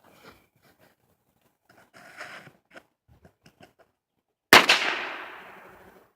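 A single revolver shot about four and a half seconds in, a sharp crack followed by a long echoing decay. Faint small clicks come before it.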